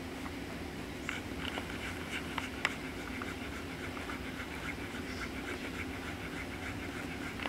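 Four-day-old German Shepherd puppies suckling at their mother's teats: a quick run of small clicking sucks, several a second, with a few sharper ticks, over a low steady hum.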